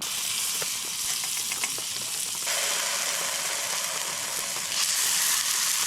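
Pork chops frying, a steady sizzle that gets louder in two sudden steps.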